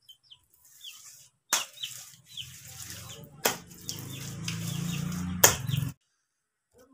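Small birds chirping in short, repeated downward chirps, with three sharp knocks about two seconds apart and a low steady hum in the second half; it all cuts off abruptly near the end.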